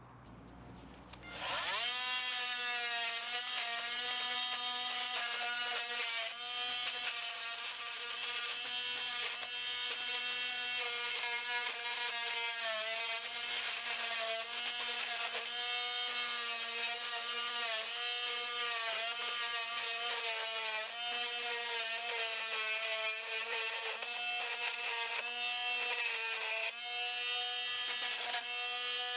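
A power tool's electric motor spins up about a second and a half in, then runs steadily with a high whine. Its pitch sags briefly every couple of seconds, as when the tool is loaded by cutting or grinding into metal.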